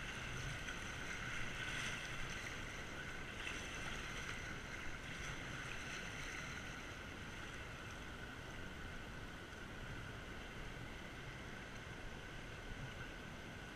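Whitewater river rushing steadily around a kayak, heard through a camera mounted on the boat, easing slightly after the first few seconds.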